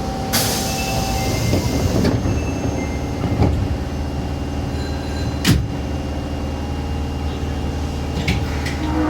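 Osaka Metro 22 series subway train: a burst of air hiss as the sliding doors work, then the train's steady low running rumble with a couple of sharp knocks.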